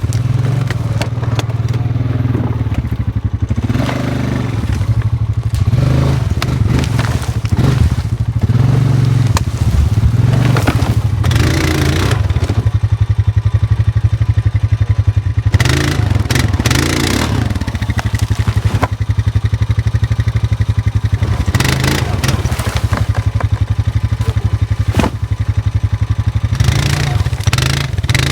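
Small vehicle engine running steadily under load, with clattering and scraping as it travels over rough ground.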